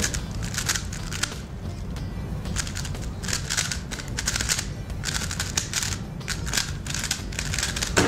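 A non-magnetic 3x3 speed cube being turned at full speed during a speedsolve: rapid runs of plastic clicking and clacking as the layers snap round, with brief pauses between runs.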